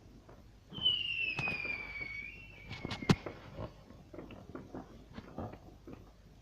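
Fireworks going off: a whistle that falls slowly in pitch for about two seconds, sharp bangs with the loudest about three seconds in, then scattered crackling pops.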